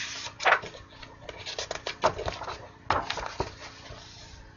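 Paper pages of a large colouring book being turned and handled: a series of rustles and flaps, the loudest about half a second in.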